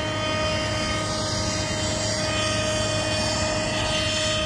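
Jet airliner engines running steadily on the ground: a continuous high whine with one strong tone, over a broad rumble and rush.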